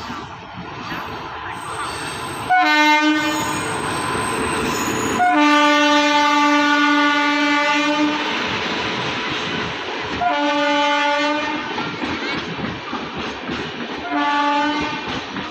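Indian Railways locomotive horn sounding four times (three short blasts and one long blast of about three seconds), each starting with a brief higher note. Between the blasts the train runs by with a steady rush and wheel clatter on the rails.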